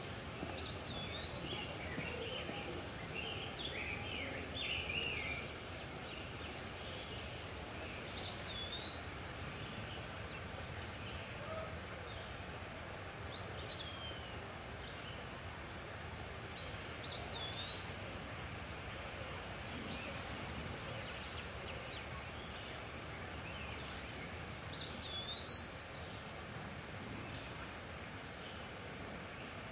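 Outdoor birdsong over steady background noise: one bird gives a short whistled call, rising then falling, about five times at intervals of a few seconds, while other birds chatter briefly in the first few seconds.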